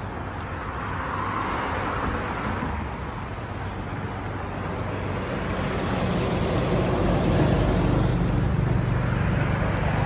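Steady outdoor noise with a low vehicle rumble that grows louder through the second half.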